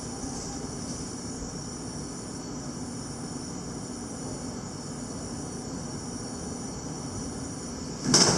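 Steady background hum and hiss, with a thin high-pitched tone that cuts in and out every second or so. A short, loud noise comes about eight seconds in.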